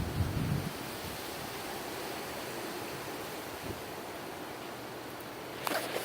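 Gusty wind rushing steadily, with low buffeting on the microphone in the first second. A brief rustle comes near the end.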